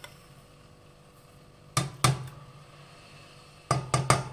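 Pestle striking in a mortar, pounding fresh ginger with whole spices (cardamom, black pepper, cloves). There are two strikes about two seconds in and a quick run of four near the end, each with a short ring after it.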